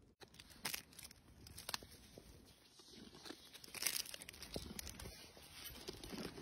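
Crinkly plastic snack packaging being torn and crumpled as macaques rummage and bite at it: irregular crackling and tearing, getting louder from about four seconds in.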